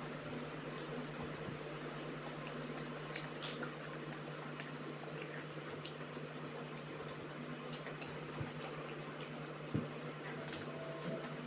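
Wet chewing and squishing of pani puri (fried hollow puris filled with spiced water and potato), with scattered small crunching clicks and a sharper one about ten seconds in. A steady low hum runs underneath.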